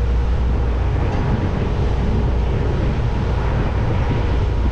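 NX400 motor cruiser underway: a steady low engine rumble with water rushing along the hull and wind noise on the microphone.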